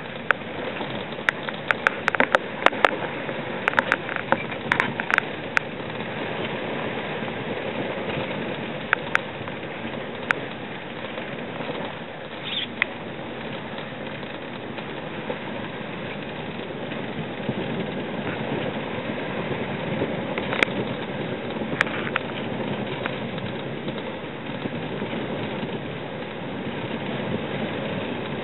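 A small sailing cruiser driving through choppy water: a steady rush of wind and water along the hull, with sharp ticks of spray striking, many in the first six seconds and a few more around twenty seconds in.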